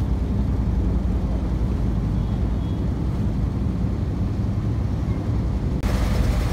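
River ferry's engine running with a steady low drone, the water and wind under it. Near the end the sound cuts abruptly to a brighter, hissier mix.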